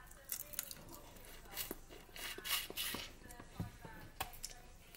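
Close-up mouth sounds of eating stewed chicken feet: chewing, sucking and smacking, with scattered small clicks.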